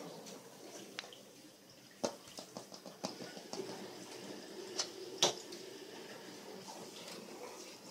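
A cat's paws and a small toy mouse make light taps and clicks on a hardwood floor as the cat bats and pounces on the toy. The taps come in a scattered run starting about two seconds in, with the sharpest ones near the start of the run and just past five seconds, over faint room tone.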